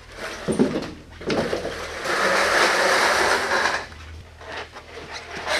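Snowmobile chassis, its metal tunnel dragging and scraping on a concrete floor as it is tipped onto its side. It is a steady scrape that starts about a second in and stops about four seconds in, followed by a few small knocks.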